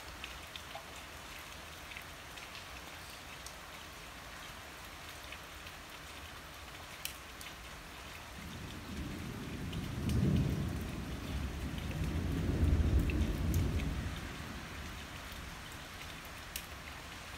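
Steady rain falling, with a few sharp drip clicks. About halfway through, a long, low rumble of rolling thunder from a weak thunderstorm swells up in two surges and dies away a few seconds later.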